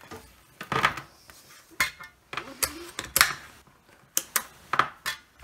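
A handheld digital multimeter being put down on a silicone work mat and its rotary dial switched: a series of separate sharp clicks and knocks.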